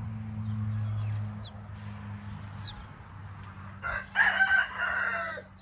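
A rooster crowing once, a loud call near the end with a short break in the middle. A steady low hum runs underneath and is strongest in the first second or so, and there are a few faint high chirps.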